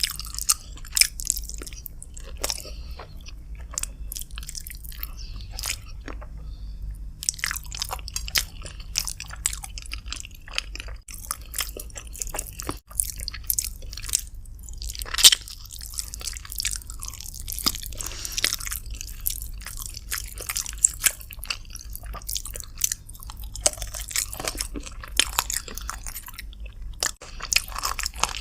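Close-miked eating: a person chewing and biting chicken with rice, with many short wet clicks and crunches and a steady low hum underneath.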